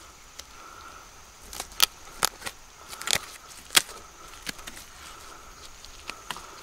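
Hands tearing and breaking apart the fibrous, rotting pith of a fallen palm trunk: a run of crackles and sharp snaps as the fibres give way, clustered in the middle.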